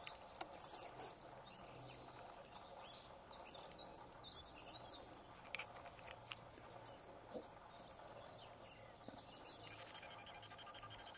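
Faint outdoor ambience with distant birds chirping on and off, and a few soft clicks about midway through.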